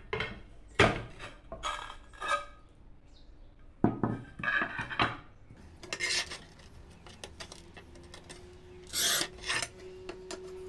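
Manual tile cutter working on ceramic tiles: two sharp cracks about one and four seconds in as the tile snaps along its score line, with clinks of the tile pieces being handled, then the scoring wheel rasping across the tile glaze later on.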